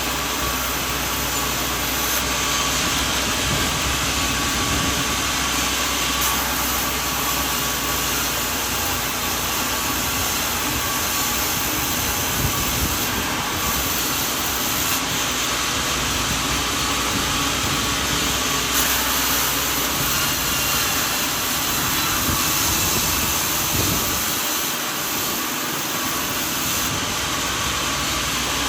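Sawmill machinery running steadily: a continuous mechanical drone with a strong hiss and a faint steady whine.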